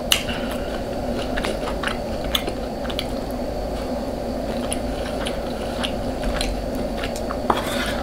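Close-miked eating: chewing and biting, with many short, sharp mouth clicks and small crunches, over a steady low hum.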